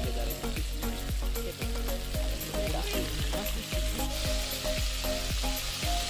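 Battered crab pieces deep-frying in a large aluminium pot of hot oil: a steady sizzle with many small crackles and pops.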